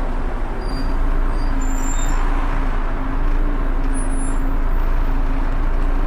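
Volvo B7TL bus running, its very loud cooling fan making a steady hoover-like whine that holds one pitch over the engine's low rumble.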